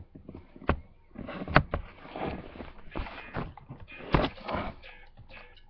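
Several knocks and bumps with rustling in between, close to the microphone: someone moving about and handling things right by a webcam.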